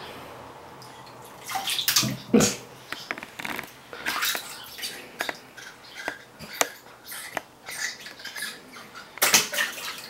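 Bath water splashing and sloshing in a tub as a toddler plays with a plastic cup, with irregular splashes and clatters starting about a second and a half in.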